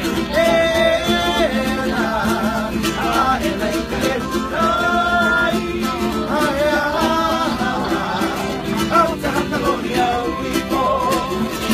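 Hawaiian entertainers singing a song, a lead voice holding long notes, over a strummed string instrument.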